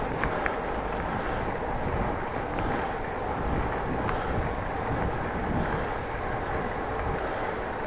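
Steady wind noise buffeting the microphone of a bicycle-borne action camera while riding, over a low rumble of tyres on the road.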